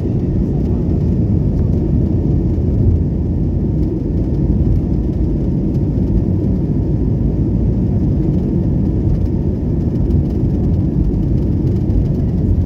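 Steady low rumble of jet engines and rushing air heard inside an airliner cabin during takeoff and initial climb.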